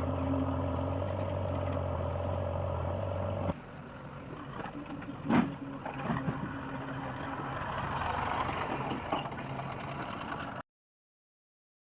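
Heavy diesel engine running steadily. About three and a half seconds in, the sound changes abruptly to a noisier engine sound with a single sharp knock near the middle. The sound drops out entirely near the end.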